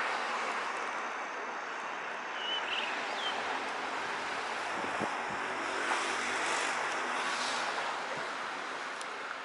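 Steady outdoor background rush with no clear single source; a low hum comes in about halfway through, and two short faint chirps sound about a quarter of the way in.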